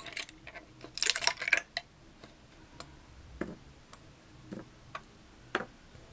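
3D-printed plastic parts crackling and popping loose as a flexible textured build plate is bent, about a second in. This is followed by a string of single sharp clicks, roughly one every half second, as the remaining printed pieces are snapped off the plate one by one.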